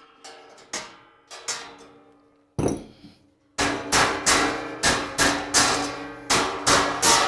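Hammer striking the steel tabs of a laser-cut steel LS mock-up engine block to bend them over and lock the plates together, each blow ringing in the sheet steel. The blows are spaced at first, then after a short pause come steadily, two to three a second.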